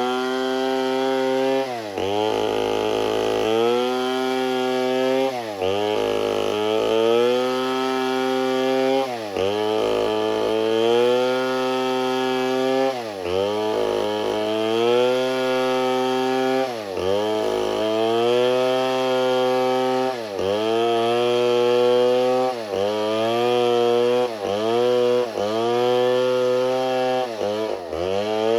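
Gas chainsaw engine running at high revs. Its note dips sharply and climbs straight back every few seconds.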